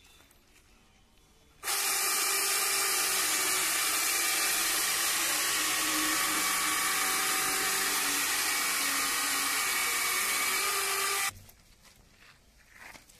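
Two-handled electric chainsaw running and cutting through a log: a steady loud whine and hiss from the motor and chain. It starts suddenly about a second and a half in and stops abruptly near the end.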